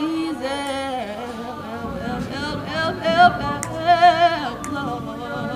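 A woman singing a cappella, a gospel melody with a wavering vibrato, loudest about three to four seconds in.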